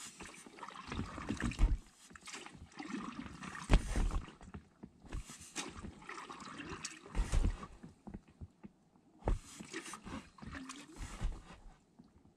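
Double-bladed kayak paddle strokes: the blades dip and pull through the water, splashing and dripping about every one to two seconds.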